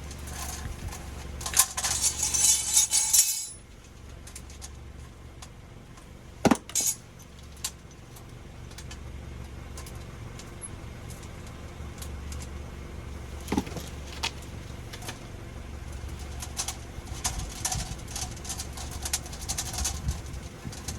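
Metal tools and pipe fittings being handled: a dense clattering jangle for about two seconds, then a few sharp knocks and scattered light clinks.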